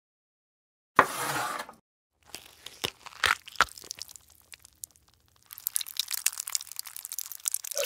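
Crunching and cracking noises: a short burst of noise about a second in, a few sharp cracks, then a dense run of fine crackling that starts a little past the middle.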